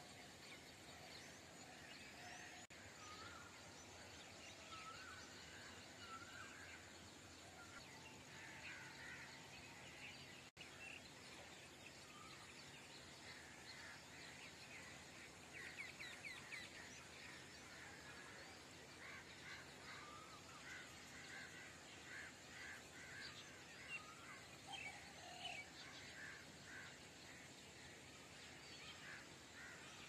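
Faint morning chorus of several small birds chirping and calling over a steady background hiss, the calls thickening into quick runs of chirps in the second half.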